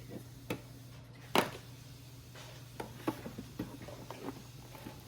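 Scattered light clicks and taps from handling a toy's box and plastic packaging, with one sharp knock about a second and a half in, over a low steady hum.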